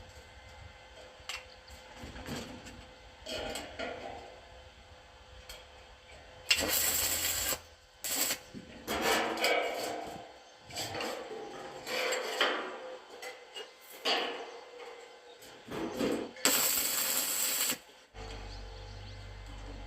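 Metalworking in progress: irregular scraping and knocking of tools on steel, with two louder noisy bursts of about a second each.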